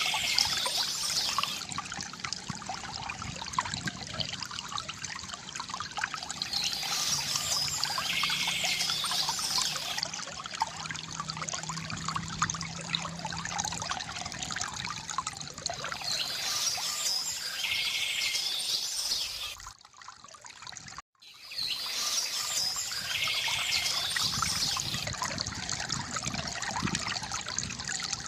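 Water trickling and pouring steadily from a bamboo fountain, with a songbird singing four short phrases over it. About two-thirds of the way through, the sound drops out briefly for about a second and a half.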